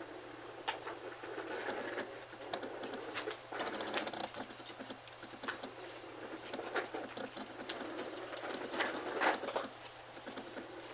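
Irregular rustling with sharp little clicks and scratches as a kitten clambers over carpeted cat-tree and fabric couch cushions, close to the microphone, with some handling noise.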